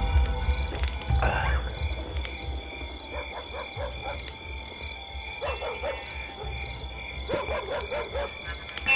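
Night ambience: insects chirp in a steady, even pulse while frogs croak in short bursts of four or five calls. A low rumble underneath fades over the first few seconds.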